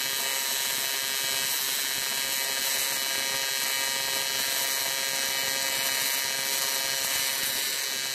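AC TIG welding arc on aluminum held at too long an arc length, giving a steady, really loud and raspy buzz. That raspy sound is the sign of an arc held too long.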